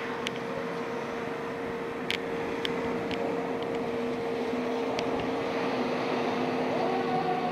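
Fire apparatus diesel engines running as the trucks pull out of the station, with a steady whine underneath and a few sharp clicks. Near the end a siren begins to wind up.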